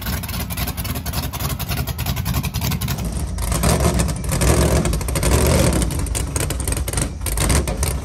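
Loud car engine running with a rough, choppy exhaust note. It revs up from about three and a half seconds in, then settles back.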